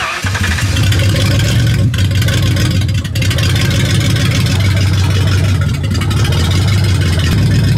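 Mercury Grand Marquis V8 engine running steadily with a low hum, lubricated with personal lubricant jelly instead of motor oil. The engine comes in suddenly right at the start.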